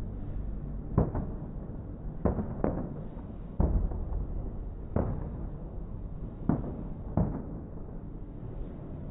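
Aerial fireworks shells bursting overhead: about eight sharp bangs at uneven intervals, some in quick pairs, each trailing off over a low rumble.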